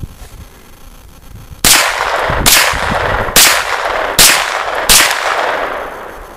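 Five shots from a 9mm Kel-Tec SUB-2000 carbine, fired semi-automatically a little under a second apart. Each sharp crack is followed by a trailing echo that dies away after the last shot.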